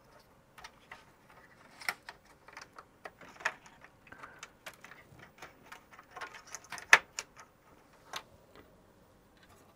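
Scattered light clicks and small knocks of plastic connectors and ribbon cable being handled as a BlueSCSI adapter is unplugged from inside a Macintosh IIsi chassis. The clicks come at irregular intervals, and the sharpest comes about seven seconds in.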